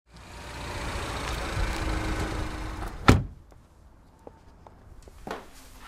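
A car running with a steady low rumble, then a car door slamming shut about three seconds in, followed by a few light clicks.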